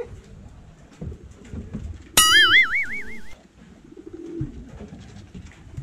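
Pigeons at a loft cooing over and over. About two seconds in, a loud comic sound effect cuts in: a sudden tone that wobbles up and down in pitch for about a second.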